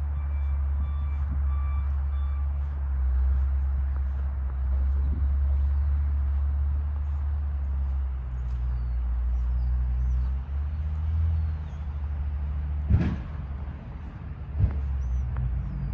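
A heavy vehicle's engine rumbling steadily at idle, with a backup alarm beeping at an even rate for the first couple of seconds. Two sharp knocks come near the end.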